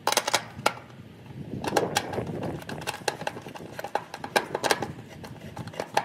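Screwdriver clicking and scraping on the sheet-metal mounting strap of an air conditioner's run capacitor as the strap screw is driven tight, in irregular sharp clicks with handling noise between them.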